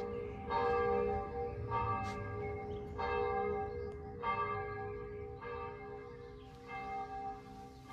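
Bells ringing in a peal of several tones, a new stroke about every second and a quarter, slowly growing fainter.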